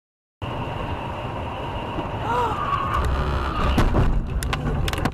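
Car driving on a highway, heard from inside the cabin through a dashcam: steady road and engine noise that grows louder, a brief voice about two seconds in, and several sharp knocks near the end.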